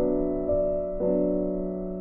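Background music: soft piano-like keyboard notes, with a new chord struck about every half second, each one fading.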